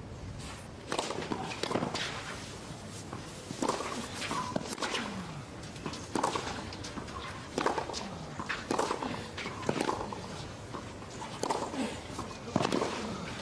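Tennis balls struck by racket strings back and forth in a long baseline rally on a clay court, a sharp hit every second or so.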